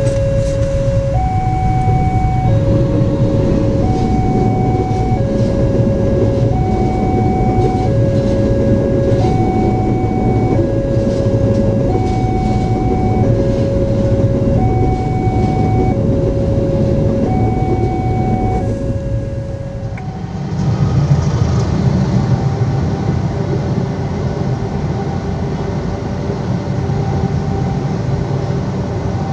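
Railway level-crossing alarm sounding a two-tone signal, alternating a lower and a higher tone each held a little over a second, over the rumble of a passenger train passing the crossing. About twenty seconds in the sound changes to a container freight train rolling past, heard from inside a car, with only a faint alarm left.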